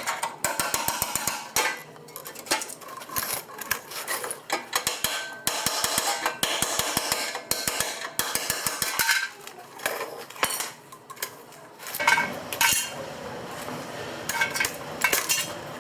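Rapid, irregular metallic clinks and taps, with a steadier noise and low hum taking over about twelve seconds in.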